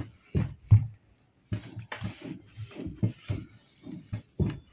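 Hands kneading soft flour dough in a bowl: repeated squishing presses with dull thumps against the bowl, a few each second, at an uneven pace.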